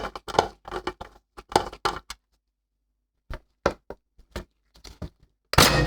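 Hands working on a PC power supply, making sharp clicks and knocks of hard parts: a quick run of them over the first two seconds, a few more after a short pause, and a louder knock near the end.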